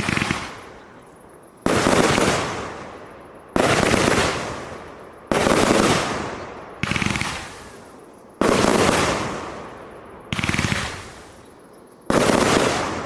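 SRpyro CLE4565 30 mm fireworks cake firing: seven loud bursts, one every one and a half to two seconds, each starting sharply and dying away in a rapid crackle over a second or so.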